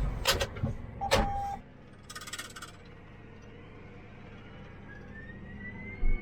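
Harvest machinery running with a steady low hum. Two sharp clicks and a short beep come about a second in, and a brief rapid buzz follows around two seconds. Near the end a rising whine builds, and a thump sounds just before the end.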